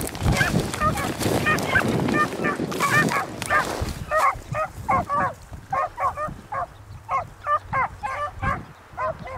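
Pack of beagles baying as they run a rabbit's track: short, pitched bays repeated a few times a second without a break.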